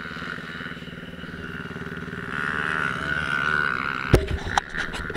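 Motocross bike engine idling at a standstill, heard through a camera mounted on the bike, getting a little louder about two seconds in. A few sharp knocks and clatter near the end.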